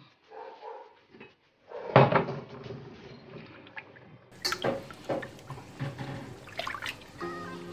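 Hands handling cleaned fish pieces in a plastic dish of water: a sharp knock about two seconds in, then wet sloshing and small clunks against the dish as the pieces are moved about.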